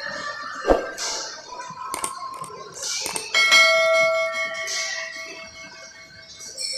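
Subscribe-button sound effect: a few mouse clicks about three seconds in, then a bell chime that rings out and slowly fades over about three seconds. A sharp knock comes under a second in.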